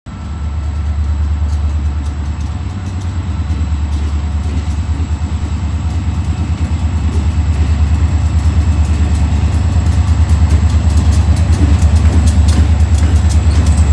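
Two EMD SD40-2 diesel locomotives with 16-cylinder two-stroke engines rumbling with a pulsing beat, growing louder as they approach and pass close by. Sharp clicks from the wheels on the rails come in and grow denser in the second half.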